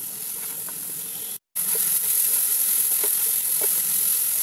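Quartered button mushrooms sizzling as they fry in butter in a non-stick kadai, with a spatula stirring through them in light scrapes and knocks. The sound cuts out briefly about a second and a half in, then comes back louder.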